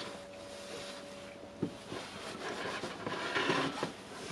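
Quiet workbench handling noises: a single sharp click about one and a half seconds in, then soft rustling and scraping about three and a half seconds in.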